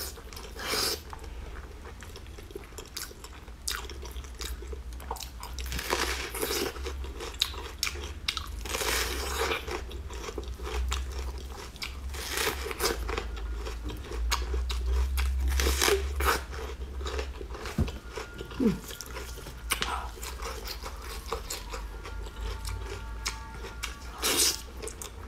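Close-miked eating: irregular bites and chewing of soft braised pork rolls, with a crunchy bite into a raw red onion about midway.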